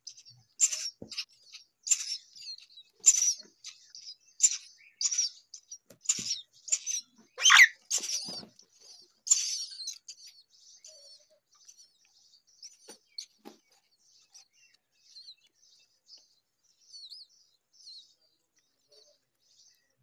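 Myna nestlings begging while being fed: short, high-pitched cheeps repeated about once or twice a second, with one louder call sliding down in pitch about seven seconds in. After about ten seconds the cheeps thin out and grow faint.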